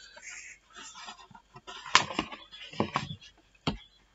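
A sheet of painting paper rustling as it is freed and repositioned on an easel by hand, with two sharp taps, one about two seconds in and one near the end.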